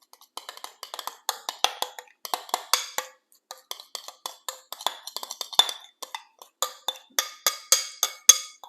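Cutlery clinking and scraping against a ceramic dish in many quick, irregular taps, each with a short ringing tone.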